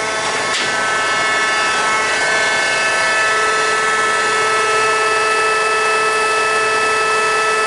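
Marvel Model 81 vertical bandsaw running with the blade turning and no material in the cut, a steady machine hum with several high whining tones over a hiss, as the blade feeds slowly forward under hydraulic power.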